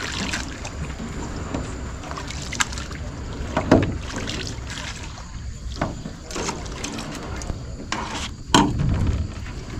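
A small boat being paddled through dense reeds: paddle strokes in the water and reed stems brushing along the hull, with a few sharp knocks, the loudest about four seconds in and again near the end.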